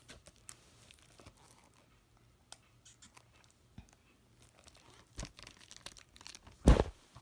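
Plastic DVD case in cellophane shrink-wrap being handled and turned over: crinkling and rustling of the wrap with scattered small clicks, and a louder bump near the end.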